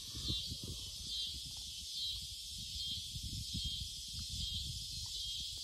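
Steady high chorus of insects with a faint pulsing pattern, over a low gusty rumble of wind on the microphone.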